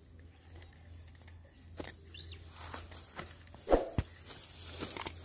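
Footsteps through tall grass, with stalks brushing and rustling and a single sharper thump about four seconds in.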